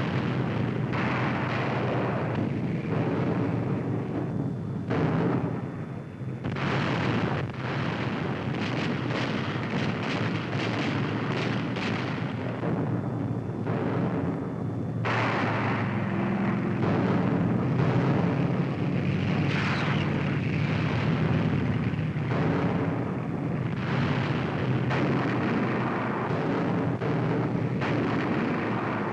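A continuous din of heavy gunfire and explosions, the sound of tank and anti-tank guns firing repeatedly, with shot after shot overlapping.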